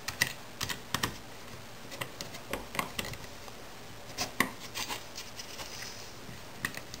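Irregular small clicks and taps of a screwdriver and metal parts being handled on a small aluminium jig as a screw is tightened down to clamp a steel wire. The sharpest click comes right at the start, another about four and a half seconds in.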